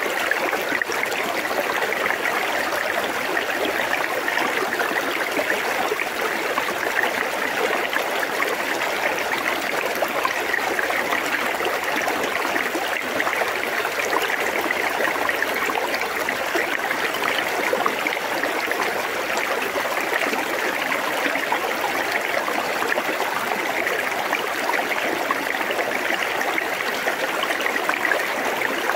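River current flowing and babbling past stones close to the microphone, a steady even rush of water.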